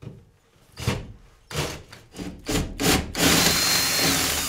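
Cordless drill with a spade bit boring through ceiling drywall to enlarge a hole: several short bursts of cutting, then one longer run of about a second near the end with a faint motor whine.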